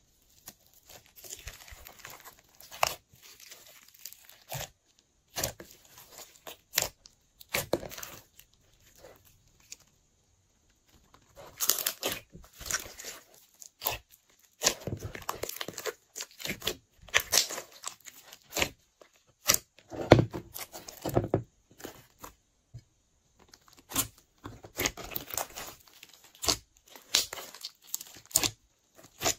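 Hands squeezing, mixing and stretching slime, making irregular sticky crackles, pops and tearing sounds, with a short pause about ten seconds in.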